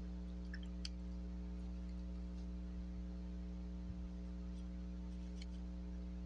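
Steady low electrical hum, with a few faint light clicks about a second in and again near the end as a paintbrush is rinsed in a water cup and dabbed on a paint palette.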